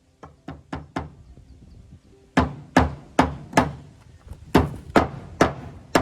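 Hammer driving a nail into rough-sawn green oak board-and-batten siding: four light taps to start it, then two runs of four hard blows, about two and a half a second.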